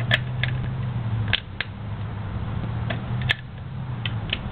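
Wrench tightening the 17 mm oil drain plug that holds the oil strainer screen on a 1993 Honda Helix scooter engine, giving a few sharp metallic clicks, mostly in pairs, over a low steady hum.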